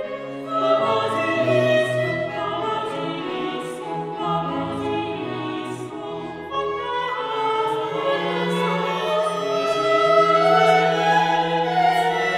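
Classical music with operatic singing and orchestral accompaniment, moving in slow, long-held notes.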